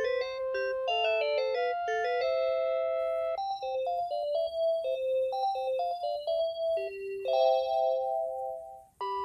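Panasonic KX-TCA132RUT handset playing a melody ringtone: a synthesized tune with several notes sounding at once. It cuts off near the end, and after a brief gap a different ringtone melody starts.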